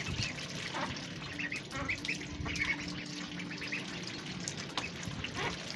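Several ducks calling, with many short quacks and squawks overlapping in quick succession.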